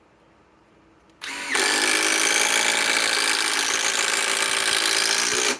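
Metabo HPT WH18DDX 18-volt subcompact impact driver running a 4-inch GRK screw. About a second in it spins up briefly at lower level, then hammers steadily for about four seconds and stops suddenly.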